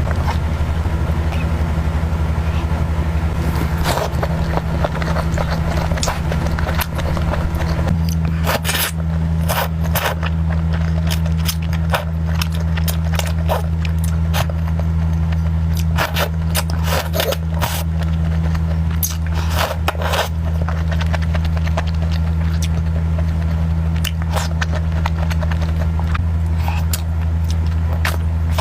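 Close-up eating sounds: many short crunches, clicks and crackles of biting and chewing food, thickest in the middle stretch. Under them runs a steady low hum, the loudest thing throughout.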